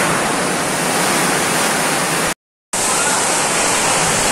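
Torrential typhoon rain and wind, a loud steady rush, broken by a brief dropout to silence a little over two seconds in.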